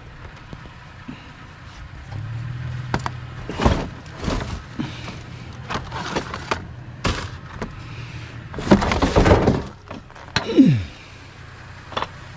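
Knocks, clanks and clatters of curbside scrap, an aluminium bicycle frame and a large speaker, being pulled about and handled, with a longer rattling stretch and a short falling squeak near the end. A steady low engine hum runs underneath.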